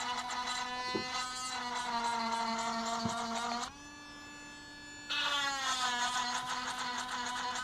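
A small electric motor buzzing steadily at one pitch. About halfway through it goes quieter and slightly higher for over a second, then comes back louder and its pitch slides down again, as the load on it changes. Two faint knocks come early on.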